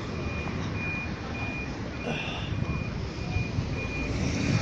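Electronic warning beeper sounding a single high tone, evenly repeated a little under twice a second, over the rumble of street traffic.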